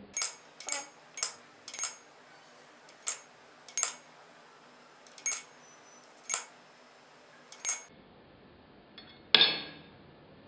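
Coins clinking one at a time against a brim-full glass of water as they are dropped in: about nine sharp, briefly ringing clinks at uneven intervals.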